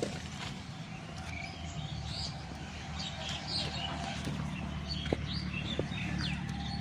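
Several small birds chirping and calling in quick, overlapping short notes, over a steady low drone.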